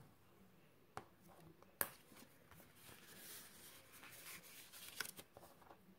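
Faint rustle of designer paper being folded by hand along its score lines and creased with a bone folder, with two sharp clicks about one and two seconds in.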